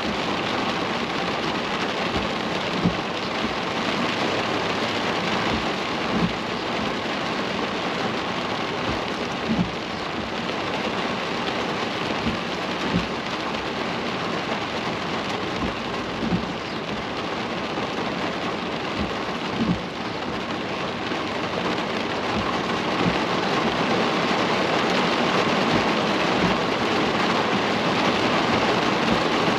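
Steady rain falling on a car while driving, with a soft low thump about every three seconds.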